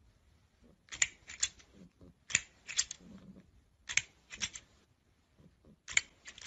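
Plastic extending crocodile grabber toy snapping its jaws shut, sharp plastic clacks in quick groups of two or three about every second and a half.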